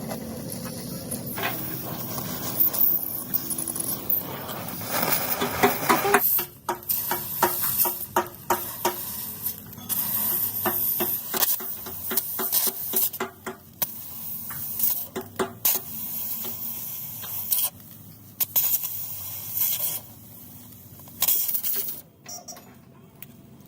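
Workshop hissing noise that breaks into many short bursts in quick succession, with some clatter mixed in.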